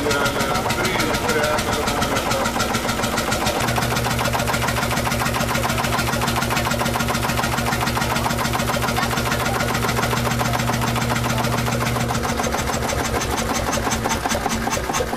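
A vintage engine running steadily at idle with an even, rapid beat. A steady low hum joins about four seconds in and stops about twelve seconds in.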